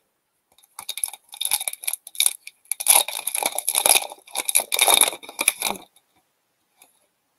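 Foil wrapper of an Upper Deck hockey card pack crinkling and tearing as it is opened by hand. The rustles start about a second in and stop near six seconds.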